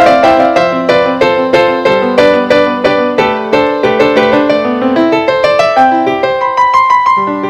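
Instrumental piano music: a steady stream of struck notes in flowing broken chords, each note ringing and fading. The lower notes thin out about six seconds in, leaving a higher held note near the end.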